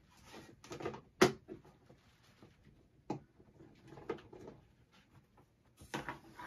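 Scattered handling clicks and knocks, with light rustling, from a snake enclosure being opened and a western hognose snake lifted out. The sharpest click comes about a second in, and another about three seconds in.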